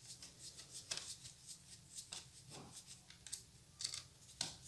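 Faint, scattered small clicks and scrapes of a tiny screw and screwdriver being worked to fasten an M.2 SSD into its slot on a laptop motherboard.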